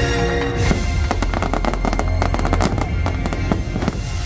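Fireworks firing in rapid succession: many sharp pops and crackling reports, starting about half a second in and thick through the rest. Show music with held notes plays underneath and fades toward the end.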